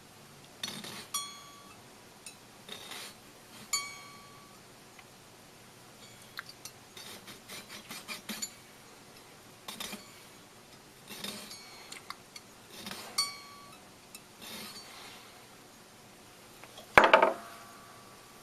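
Small metal hand tools and gold bracelet parts clinking and tapping on a jeweler's bench: a scattered series of light metallic clicks, some with a short ring, while the bracelet links are cut and separated. One much louder metallic clatter with ringing comes near the end.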